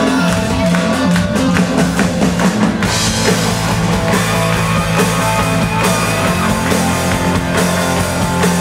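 Live rock band playing a song's instrumental intro on drum kit, guitars and bass; the drums and cymbals fill out the sound about three seconds in.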